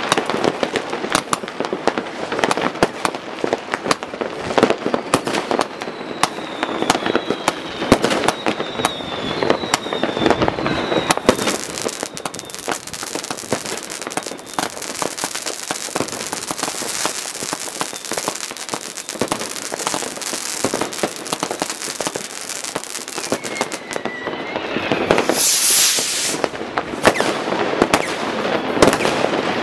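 New Year's Eve fireworks going off all over a town: a dense, unbroken run of pops, bangs and firecracker crackle. Faint whistles come through about seven to eleven seconds in, and a loud rushing hiss about twenty-five seconds in.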